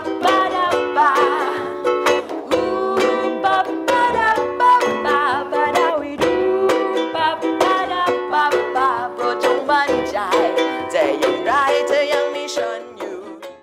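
Background music of plucked strings with a wavering melody line over them, fading out at the very end.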